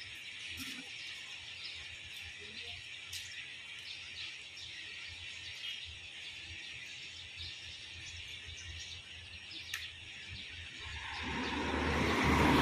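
Turboprop engines of an ATR 72 airliner running at a distance as a steady high hiss, with a few bird chirps. About eleven seconds in, a much louder engine rush swells up and holds.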